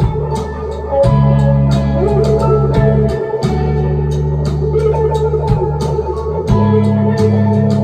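A live indie rock band playing: bass guitar holding long notes under electric guitar and keyboard, over a steady drum beat with evenly spaced cymbal strikes.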